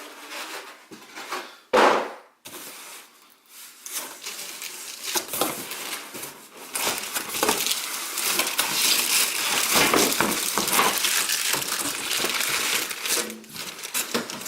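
Unpacking an appliance: packaging being handled, with a sharp knock about two seconds in. From about five seconds in there is a long stretch of crackling and rustling of plastic wrap and cardboard as parts are taken out of the box.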